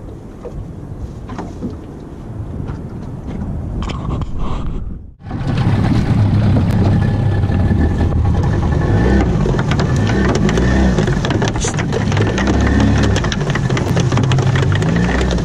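Wind on the microphone and water rushing along the hull of a small fiberglass fishing boat under way. After a brief dropout about five seconds in, a louder, steady low engine sound runs on while the gill net pays out over the side, with water splashing.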